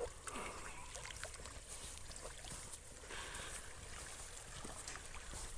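Faint water splashing and lapping as a dog swims and paddles in a flowing creek, with scattered small splashes over a low rumble.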